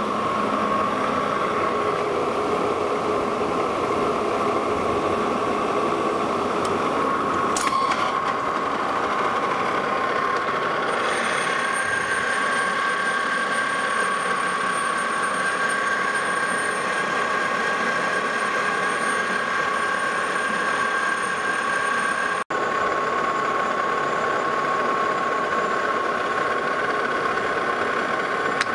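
Metal lathe running steadily with a steady whine while a boring bar cuts the inside of a new steam pipe ring's bore, enlarging it toward 2.5 inches. About eleven seconds in, a second, higher tone joins as the cut goes on. There is a single sharp click shortly before that.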